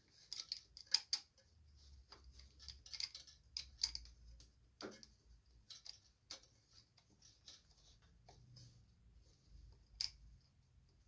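Irregular small metallic clicks and taps as nuts are fitted by hand onto the carburetor mounting studs of a Briggs & Stratton lawn mower engine, in a cramped spot, with a few sharper clicks about a second in, around four seconds in and near the end.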